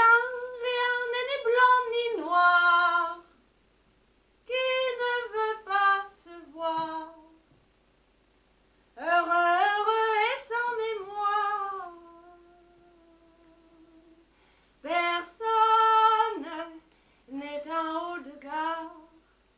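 A woman singing unaccompanied in five short phrases separated by silences, with one long held note past the middle.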